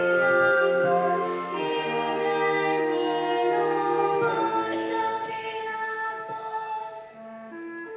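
Children's choir singing long held notes in harmony, with a boy soloist amplified through a headset microphone. Near the end the singing fades and quieter, shorter notes follow.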